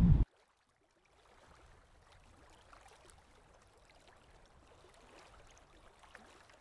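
A brief burst of wind on the microphone cuts off abruptly, then faint lake water lapping among the shoreline boulders, with a few small ticks.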